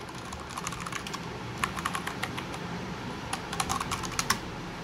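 Keys of a Dareu A87 Swallow mechanical keyboard with brown switches being pressed in quick, irregular runs of clicks. The clicks grow thicker about a third of the way in and stop shortly before the end.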